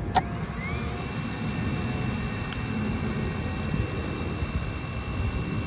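A DJI camera quadcopter hovering for a noise test: a steady thin propeller whine that settles in about a second in, over a low outdoor rumble.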